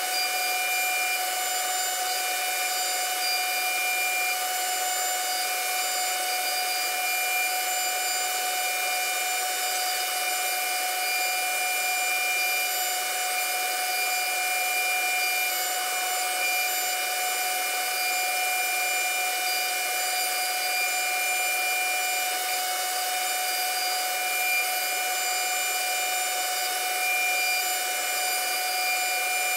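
CNC router's high-speed spindle running steadily as its bit carves a wood panel, a constant whine of several tones over a hiss of cutting.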